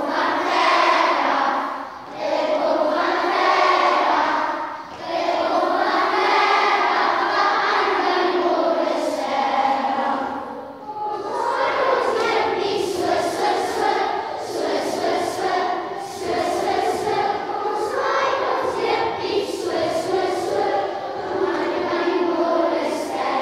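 A group of young children singing together in unison, a sung action song carried in phrases with short breaks about two, five and eleven seconds in.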